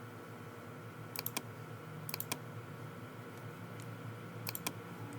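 Computer keys tapped in three short clusters of two or three clicks, with a few single taps, over a steady low hum.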